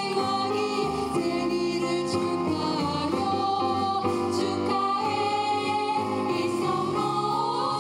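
Women's choir singing in harmony into microphones, several voices holding long notes together and moving from chord to chord.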